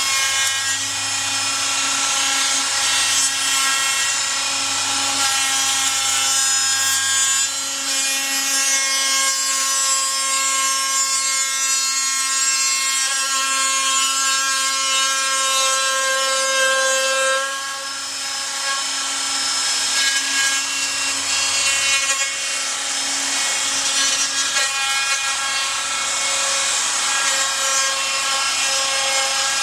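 Electric router fitted with a roundover bit, running at full speed and cutting wood as it is guided along a template: a steady high whine over a continuous cutting noise, dipping briefly about seventeen seconds in.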